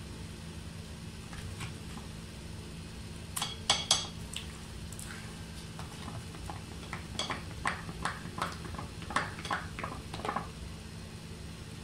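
A spoon stirring thick pancake batter in a glass bowl, clinking and scraping against the glass: two loud clinks about three and a half seconds in, then a run of quicker taps from about seven to ten seconds.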